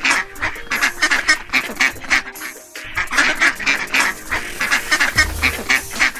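Ducks quacking: rapid runs of short, nasal quacks repeated in bouts, with a brief low hum near the end.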